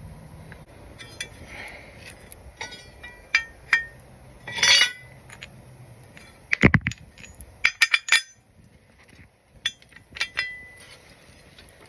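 Steel mower blade, washers and mounting bolt clinking against each other and against metal as they are handled and fitted. The clinks are short and scattered, and they ring. One heavier knock comes a little past the middle.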